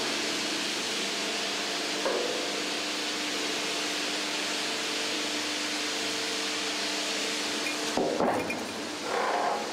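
Steady machine hum and shop noise in a steel-plate forming workshop. A single knock comes about two seconds in, and a short cluster of metallic clanks follows near the end.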